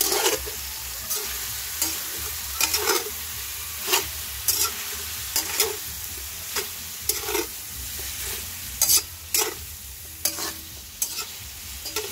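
Pork trotter pieces sizzling in a stainless steel pan while a metal spatula stirs them. The spatula scrapes and clacks against the pan bottom in irregular strokes, roughly one or two a second, over a steady sizzle.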